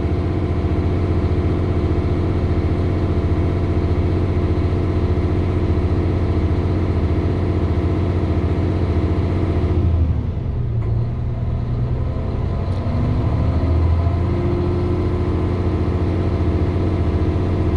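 International N13 diesel engine running at raised speed, held there by an automated air management test. About ten seconds in, its note drops and thins for a couple of seconds, then it steadies again.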